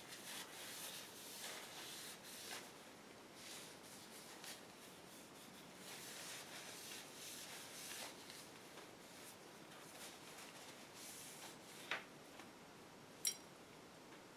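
Faint rustling of a paper tissue rubbed along a metal revolver barrel as grease is wiped onto it against rust. Two light clicks come near the end, the second sharper.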